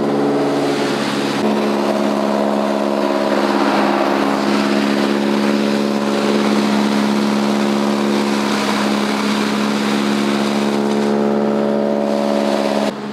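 Tractor-driven chaff cutter (chop cutter) running steadily while green fodder is fed in and chopped: a steady engine hum under a constant rushing noise of cutting. It stops abruptly near the end.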